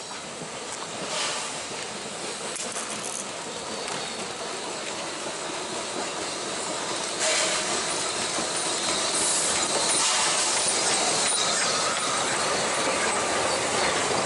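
Narrow-gauge steam tank locomotive 8A and its passenger carriages approaching and passing, growing steadily louder. There is a sudden rush of hiss about seven seconds in, then carriage wheels click over the rail joints and squeal on the curve.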